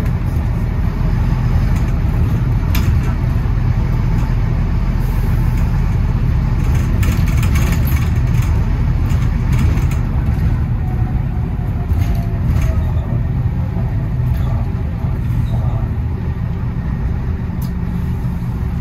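A London bus engine running with a steady low drone, with occasional knocks and rattles.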